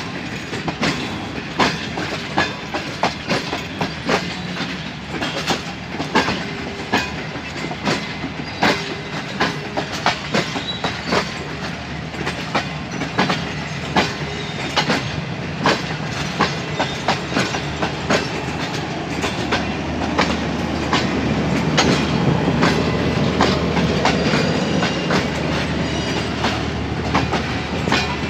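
Pakistan Railways passenger coaches rolling past at close range, their wheels clicking over rail joints in a steady clickety-clack over the running-gear rumble. The rumble grows louder over the last third.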